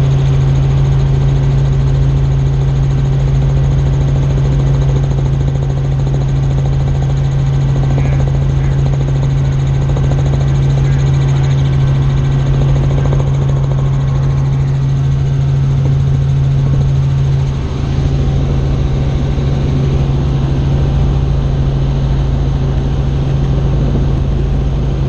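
Tour helicopter in flight: the steady drone of its rotor and engine, with a strong, constant low hum and a rumble underneath.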